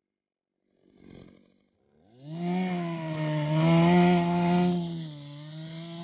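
Stihl chainsaw, silent at first with a short soft noise about a second in, then starting up about two seconds in and revving up with a rising whine. It runs at high revs and eases off a little about five seconds in.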